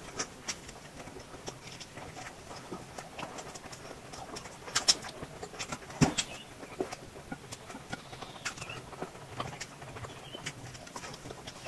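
Close-miked eating sounds: a person biting and chewing food, with irregular crunches and wet mouth clicks. The loudest bites come about five and six seconds in.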